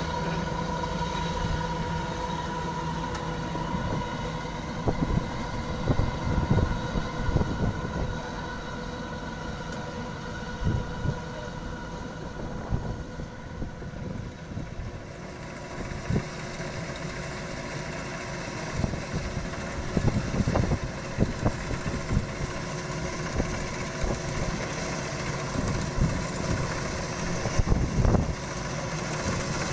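Kubota DC-93 combine harvester running steadily: a diesel engine and machinery drone, with irregular low thumps every few seconds.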